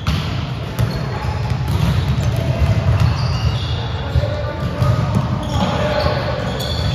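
Volleyballs being hit and bouncing on a gym floor: scattered sharp smacks at irregular intervals over a steady low rumble, echoing in a large hall.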